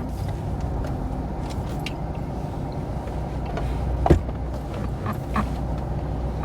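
Car running, heard from inside the cabin as a steady low hum, with a single sharp click about four seconds in.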